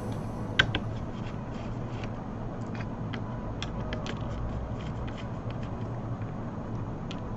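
Light clicks and scrapes of a laptop motherboard and small parts being handled on a cutting mat, with one sharp click about half a second in, over a steady low hum.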